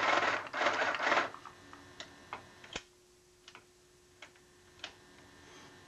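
Small portable electric sewing machine running for about a second, with a couple of brief breaks, then stopping. It is followed by a scattering of light clicks and ticks from handling the machine, one sharper than the rest.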